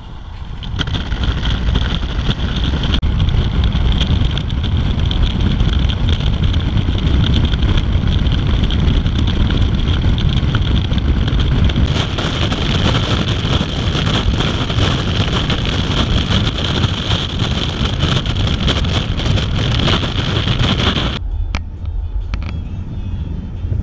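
Wind blowing hard over the microphone of a camera held out of a moving car's window, a steady loud rumble and hiss mixed with road noise. About 21 seconds in, the hiss drops away suddenly, leaving a low rumble.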